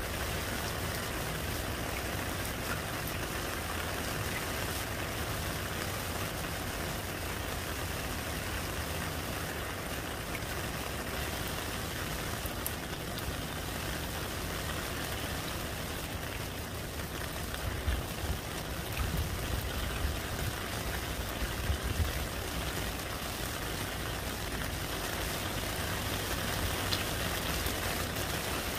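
Steady heavy rain splashing into a puddle on the ground. A few louder low bumps come about two-thirds of the way through.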